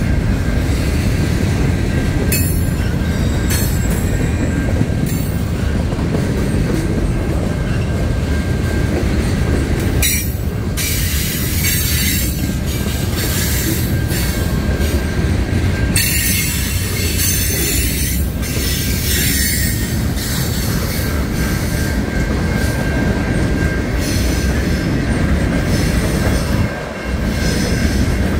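Freight train cars rolling past, a steady heavy rumble of steel wheels on rail. High-pitched wheel squeals come and go several times, the longest around the middle of the passage.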